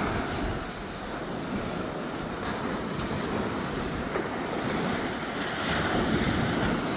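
Pacific Ocean surf washing onto the beach, with wind buffeting the microphone; the wash swells louder about five and a half seconds in.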